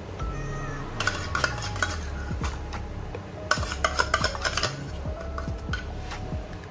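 Metal spoon scraping and clinking inside a tin of cream while scooping it out into a saucepan, in two bursts of clinks: one about a second in and one about three and a half seconds in.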